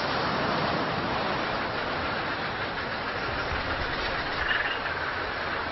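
Ocean surf breaking and washing onto a sandy beach and over rocks: a steady rushing of waves.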